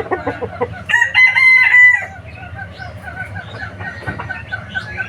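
A rooster crows once, a loud call lasting about a second, starting about a second in. Chickens then cluck in short repeated notes, about four a second.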